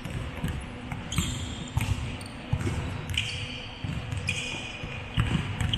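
Basketball bouncing on a court during play, with a few short high squeaks a little past the middle.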